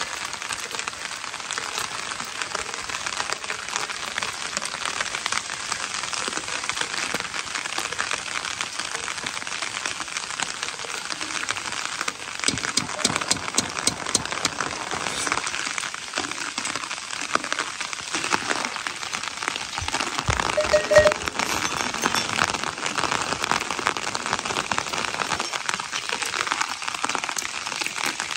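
Steady rain falling, with many small drops ticking against the surfaces. A brief louder sound stands out about three quarters of the way through.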